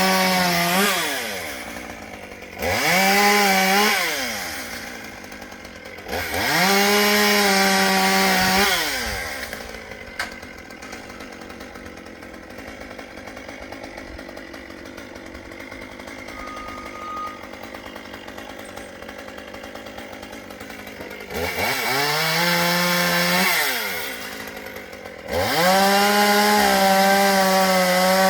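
Chainsaw revving to full throttle in repeated bursts of two to three seconds, each rising in pitch, holding steady, then falling back to idle. There is a longer stretch of idling in the middle.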